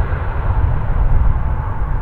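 Arriving jet airliner's engines, a steady low rumble with a faint whine above it.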